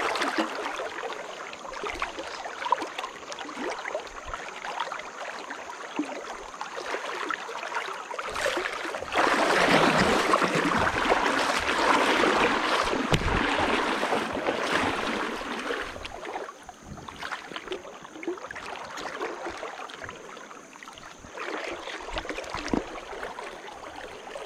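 River water rushing and splashing, with small splashes and knocks throughout; the rush grows much louder for about seven seconds in the middle, then settles back.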